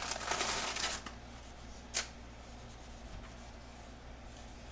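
Plastic packaging crinkling for about a second as tostada shells are pulled out of the bag, then a single sharp click about two seconds in.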